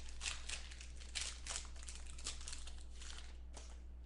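Rustling, crinkling packaging and trading cards being handled, a quick run of short rustles that thins out near the end.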